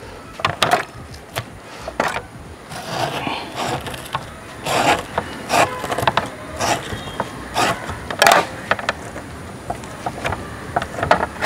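A knife blade scraping the scalded outer skin off a buffalo tongue on a metal plate, in short irregular strokes.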